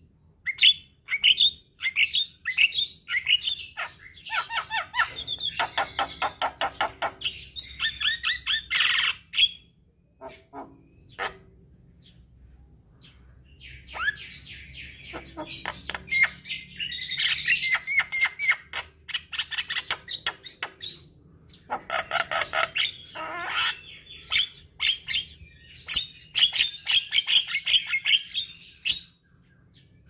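Caged Javan myna singing: long bouts of fast chattering, repeated notes and squawks, with a lull of a few seconds about a third of the way in.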